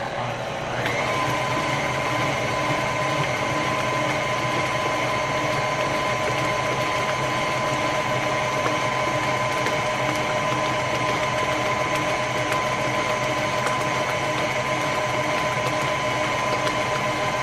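KitchenAid Ultra Power tilt-head stand mixer switched on: its motor spins up about a second in, then runs at a steady speed with a whine. It is beating egg whites and vanilla into creamed butter and sugar.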